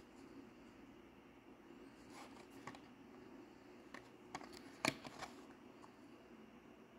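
Hot Wheels blister card, a plastic bubble on a cardboard backing, handled in the fingers and turned over. It gives a few faint crinkles and clicks, the sharpest near five seconds in, over a low steady hum.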